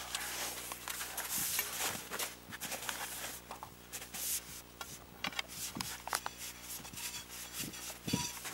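Irregular scraping and rubbing as the metal drive rod of a sediment piston corer is worked down hand over hand through gloved hands and a hole in the lake ice.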